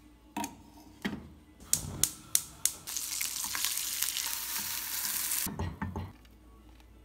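Egg frying in a hot non-stick pan: a few sharp taps and clicks, then a loud sizzle for about two and a half seconds that stops suddenly, followed by a couple of low knocks as a spatula works the egg.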